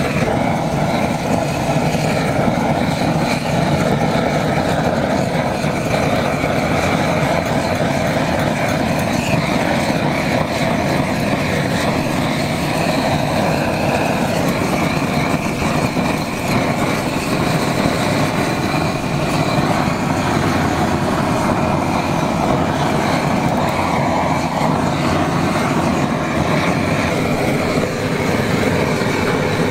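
Handheld butane blowtorch flame burning with a steady, loud hiss while it browns shredded cheese on lobster halves.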